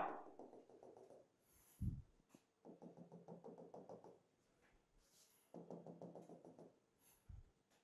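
Marker tip tapping out dashed lines on a whiteboard: three runs of rapid light taps, each about a second long. A dull knock comes about two seconds in and another near the end.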